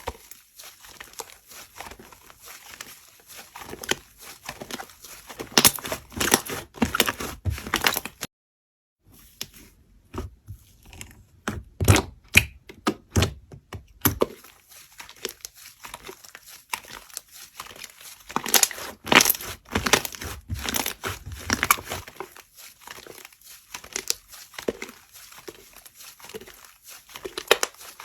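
Slime being pressed, squished and stretched, giving dense irregular crackling and popping clicks in clusters. The sound breaks off into a short silence about eight seconds in.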